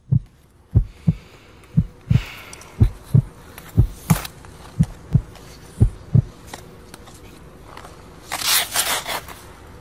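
Slow heartbeat sound effect: paired low thumps, lub-dub, about once a second, stopping about six seconds in. Near the end comes a brief hissing scrape.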